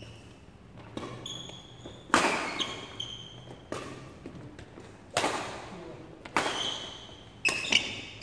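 Badminton rally: sharp racket strikes on the shuttlecock about every one to one and a half seconds, each echoing in the hall. Short sneaker squeaks on the court floor come between the strikes.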